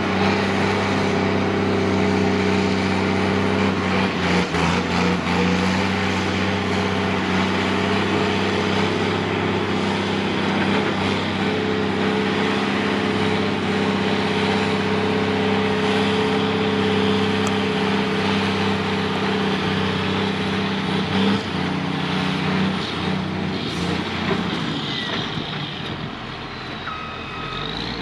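Diesel engine of heavy earthmoving machinery working under load, a steady low running note; near the end it eases off briefly and then revs back up.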